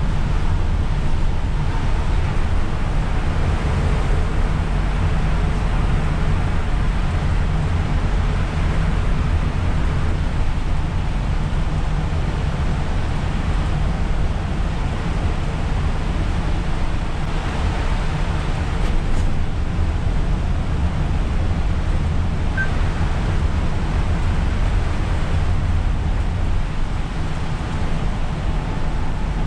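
Steady cabin noise of an Isuzu Erga city bus cruising on a rain-soaked road: a constant low engine and drivetrain rumble under a broad hiss of tyres on wet asphalt and rain.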